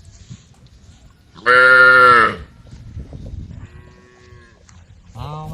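Cows mooing: one loud call about a second and a half in, a fainter one near four seconds, and another starting at the end.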